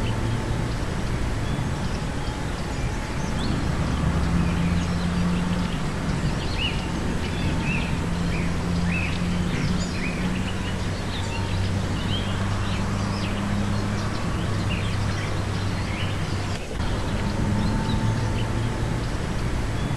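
Many short, high chirping calls from a flock of small birds flying past, thickest in the middle of the stretch, over a steady low hum.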